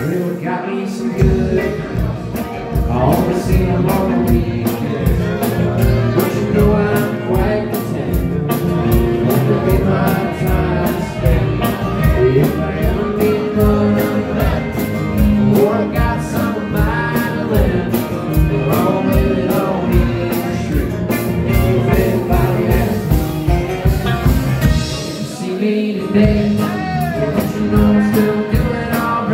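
Live band playing a bluesy country-rock song: drum kit keeping a steady beat under acoustic and electric guitars, with a sung vocal.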